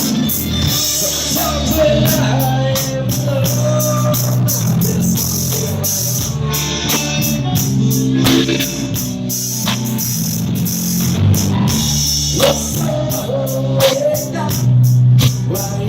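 Rock band playing, with guitar, drums and some singing.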